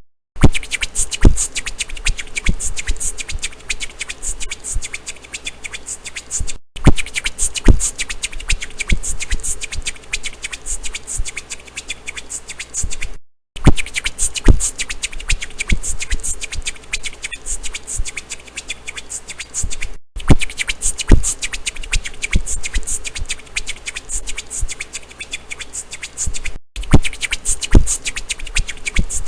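Rhythmic percussive clicks and hits, beatbox-like. The same stretch of about six and a half seconds repeats over and over, each time ending in a brief dead gap.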